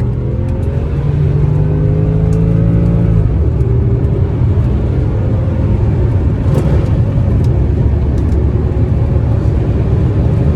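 Audi S8's engine under hard acceleration, its pitch rising for about three seconds, then dropping suddenly at a gear change and running on steadily.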